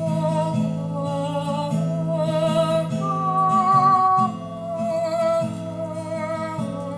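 A voice singing slow, held notes with vibrato over a steadily strummed acoustic guitar.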